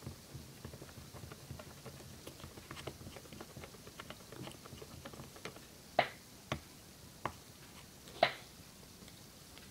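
A stick stirring a thick glue mixture in a small plastic cup: a run of small clicks and scrapes, with four sharper, louder clicks of the stick against the cup in the second half.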